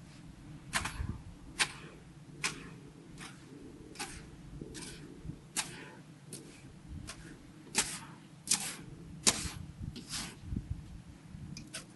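Snow crunching in a series of short, sharp strokes, roughly one a second, as a man walks across snow-covered river ice pushing a wooden snow pusher. A low rumble runs underneath.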